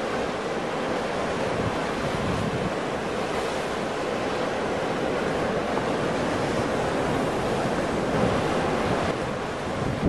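Ocean surf: breaking waves making a steady, continuous rush, with no single crash standing out.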